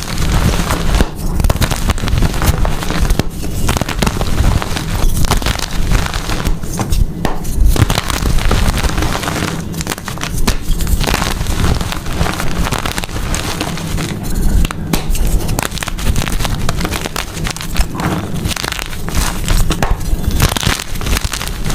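Blocks of gym chalk being crushed, crumbling with a continuous dense run of crackling crunches.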